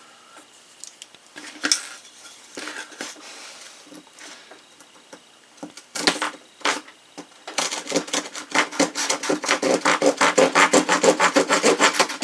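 Clicks of the stainless multi-tool's implements being folded shut. Then, about seven and a half seconds in, the small saw blade of a Husky 13-in-1 multi-tool starts sawing a piece of wood in quick back-and-forth strokes, about five a second.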